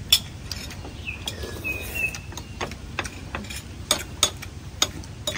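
Spoons and chopsticks clicking against ceramic bowls while people eat: irregular sharp clicks, the loudest just at the start and around four seconds in.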